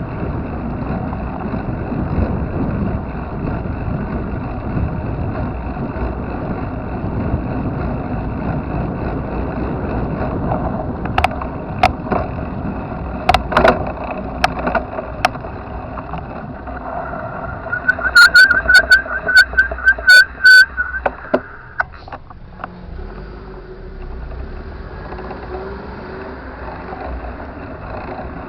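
Steady road and wind noise of a bicycle ride, with scattered sharp clicks. About two-thirds through comes a short run of loud clicks and a repeating high tone, after which the noise drops lower.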